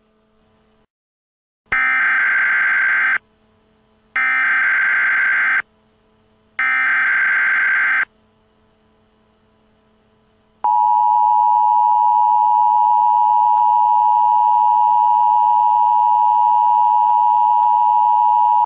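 Emergency Alert System SAME header: three loud bursts of screeching digital data tones, each about a second and a half long, then the steady two-tone EAS attention signal, which holds for about eight seconds. Together they mark the start of a new emergency alert.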